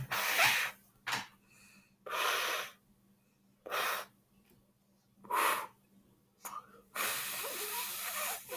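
Slime being squished and kneaded by hand: a series of short noisy bursts with pauses between, then a longer one about seven seconds in.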